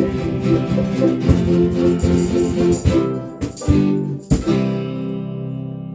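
Live band music ending a song: guitars strumming a held chord under sharp percussion hits, then a last strummed chord about four seconds in that is left ringing and slowly fading.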